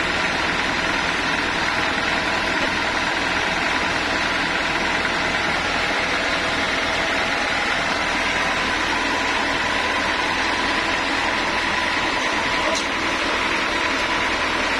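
Sawmill machinery running steadily: a motor and circular saw giving an even, unchanging hum with faint steady tones and no distinct cutting strokes.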